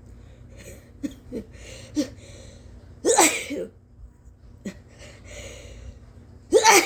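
A woman sneezing twice, loud and forceful, about three and a half seconds apart. Each sneeze follows short catching breaths as it builds; the sneezes are induced.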